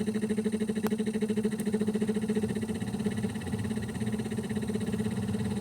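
A motor running with a steady low hum that flutters rapidly at first, then settles into a steadier drone.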